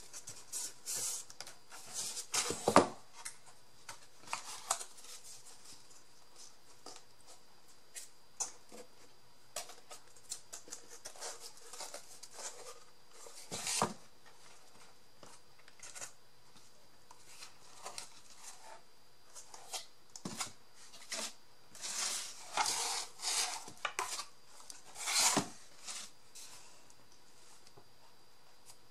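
Scattered rustles, scrapes and taps of hands working paper and cardstock with craft tools at a table, with a sharper knock about three seconds in.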